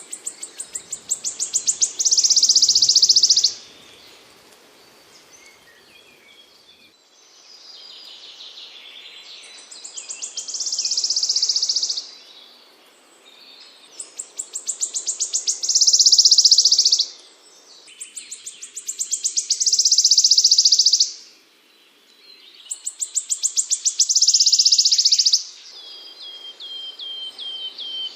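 A small songbird singing the same phrase over and over, about five times: a run of high ticks that speed up and grow louder, ending in a loud, high, buzzy trill. Near the end it gives a quick series of short sliding notes instead.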